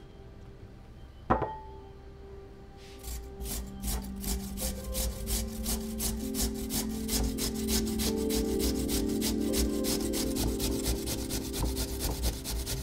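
Peeled raw potato rasped on a stainless-steel cone grater, in quick, even strokes about three a second, starting about three seconds in. A single sharp knock comes about a second in.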